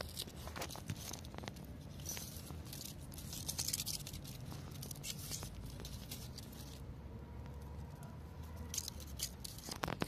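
Dry grass, leaves and twigs rustling and crackling, with scattered light clicks and scratches, over a low steady rumble.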